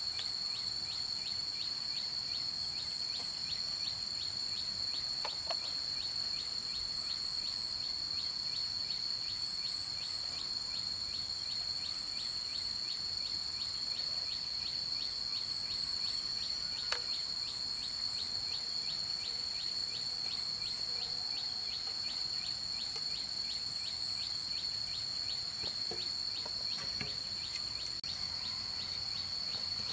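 Insects in the surrounding vegetation drone steadily at a high pitch, with a regular ticking pulse about two or three times a second. A few faint knocks from hand work in the soil.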